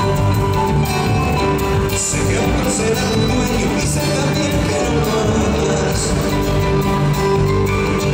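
Amplified live folk band with electric guitar and drums playing an Argentine escondido, a lively dance tune in a steady beat.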